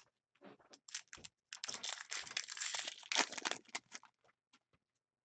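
Trading card pack wrapper crinkling and rustling as it is handled, with a dense stretch of crackling in the middle and a few light clicks and taps of cards before and after.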